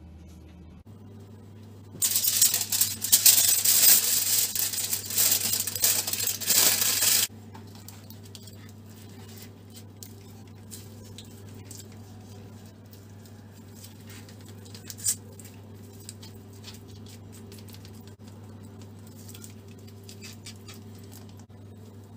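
Aluminium foil crinkling loudly for about five seconds, starting about two seconds in and stopping abruptly. Afterwards there are scattered quiet clicks and taps from a metal spit and meat being handled, over a steady low hum.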